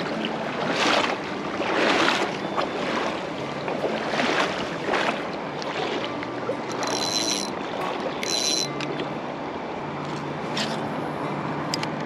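Steady rush of a shallow, fast river over rocks, with several louder swishing surges in the first five seconds and two short high-pitched bursts near the middle.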